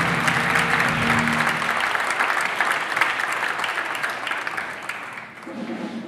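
Theatre audience applauding, a dense clatter of many hands that dies away about five seconds in. The last notes of a music cue ring under the first two seconds, and new music comes in near the end.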